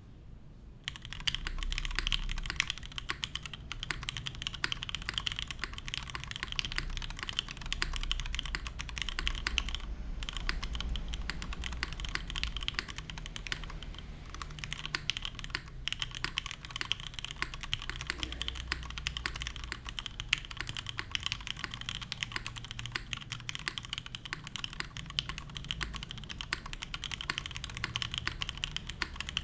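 Fast, continuous typing on a custom mechanical keyboard: a Monokei Kei R2 with lubed Cherry Hyperglide Black linear switches on an aluminium plate and GMK keycaps, rapid keystrokes clicking in a dense stream. It starts about a second in and pauses briefly twice.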